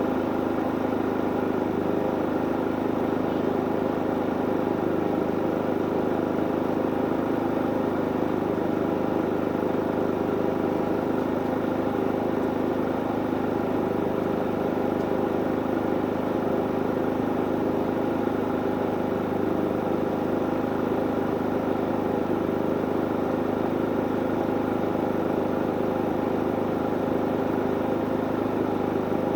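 Harbor Freight inverter generator running steadily with an even engine note, no change in speed.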